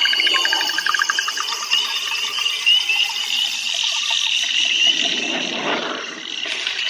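Rainforest soundscape played back from a smartphone's sound demo: rapid, evenly repeated frog-like chirps and trills.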